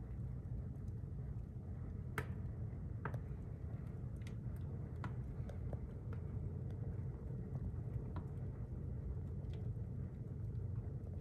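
Logs burning at full blaze in a masonry heater's firebox: a steady low rumble of flame with scattered sharp crackles and pops, the loudest about two seconds in.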